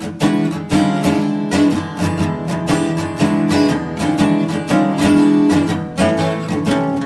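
Background music: an acoustic blues track with strummed acoustic guitar at a steady rhythm.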